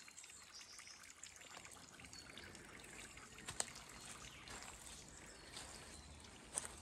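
Faint steady trickle of running water, like a small stream, with a few soft clicks.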